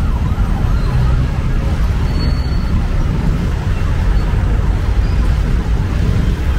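Busy street ambience: a steady low traffic rumble under the chatter of a crowd, with a brief high tone about two seconds in.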